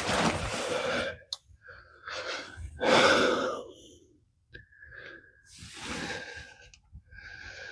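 A man breathing heavily, with a few loud breaths and sighs a second or two apart, one with a thin whistle.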